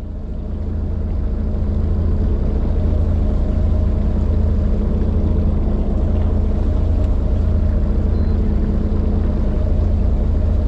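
Fishing boat's engine running steadily underway, a deep even drone that fades in over the first couple of seconds and then holds level.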